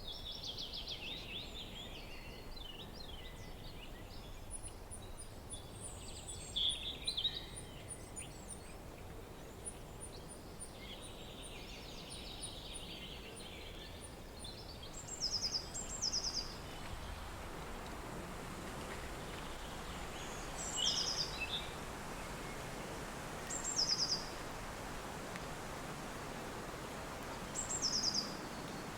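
Steady wind with small songbirds calling over it. In the second half a bird repeats short, rapid trilled phrases every three to four seconds, and the wind grows a little stronger.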